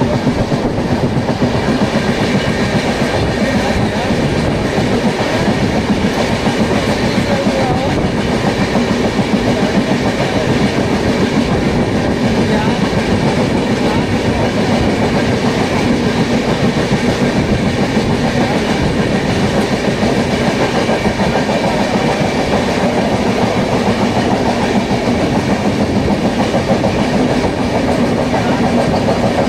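Train wheels clattering steadily on the rails, heard from aboard a moving train, as a long freight train of open steel wagons passes on the next track.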